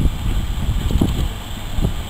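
GER Class Y14 (LNER J15) 0-6-0 steam locomotive running slowly towards the listener: a steady low rumble with three soft beats about a second apart.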